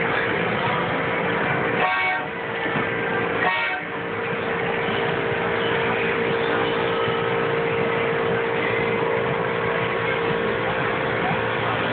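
Children's trackless ride-on train sounding two short horn toots, about two seconds and three and a half seconds in, over a steady din with a constant tone.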